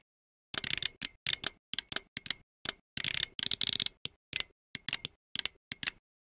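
Computer keyboard being typed on: runs of quick clicking keystrokes with short pauses between them, starting about half a second in.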